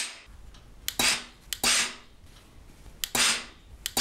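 Steam generator iron giving short shots of steam: a click of the steam button, then a hiss of about half a second with a faint low hum under it, four times.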